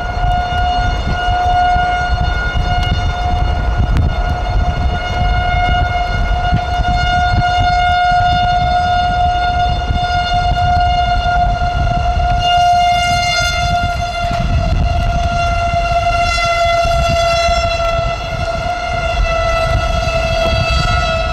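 Outdoor tornado warning siren sounding one steady, held wail, over a low rumble of wind and road noise.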